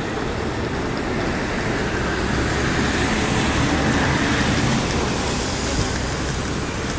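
Steady city street traffic noise from passing cars, swelling slightly about halfway through as a car goes by.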